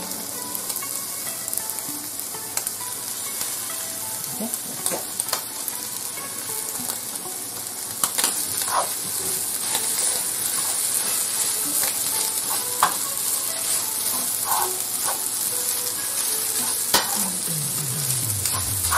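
Fried rice sizzling in a hot nonstick frying pan while being stirred and scraped with a wooden spatula. A steady frying hiss, with scattered clicks and scrapes of the spatula against the pan.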